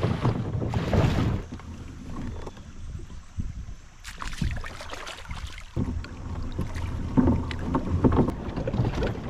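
Kayak on the water: irregular splashing and knocking, with wind buffeting the microphone, louder in the first second and again near the end.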